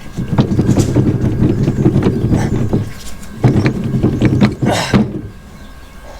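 Impact wrench running in two bursts, rapid hammering over a motor hum, loosening the bolts of a truck's hydraulic pump; a short hiss near the end of the second burst.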